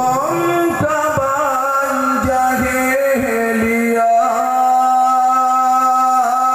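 A man singing a qasidah solo into a microphone, in a melismatic style with long, ornamented notes; from about four seconds in he holds one note steady.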